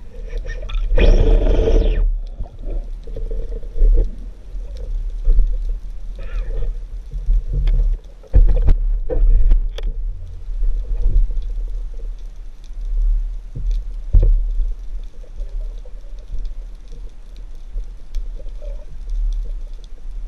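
Underwater sound picked up through a camera housing: a steady low rumble of moving water, a gurgling rush of bubbles about a second in, and scattered small clicks and knocks.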